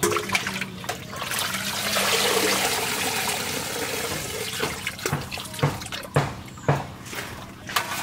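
Water splashing and streaming as cut taro stalks are scooped from a basin of water in an aluminium colander and drained over it. This is followed by several sharp separate knocks as the colander is handled against the metal basin in the second half.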